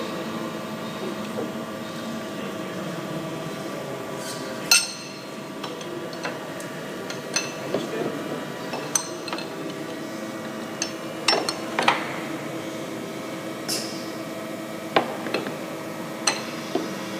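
Irregular sharp clinks and knocks of hard parts being handled, over a steady machine hum.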